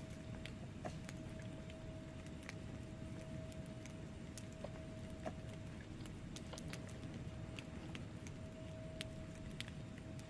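Wood fire burning in a fireplace: logs crackling with irregular sharp pops and snaps over a steady low rumble of flames, with a faint steady tone underneath.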